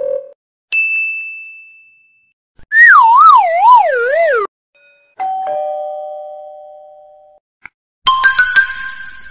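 A string of short cartoon-style sound effects. A bright single ting rings and fades, then a loud wavering whistle slides downward for under two seconds, then a lower two-note tone fades away. Near the end comes a quick run of bright chiming notes with clicks.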